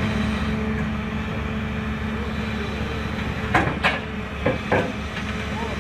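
A steady machine hum with a held low tone, broken by four sharp knocks, two close together about three and a half seconds in and two more about a second later.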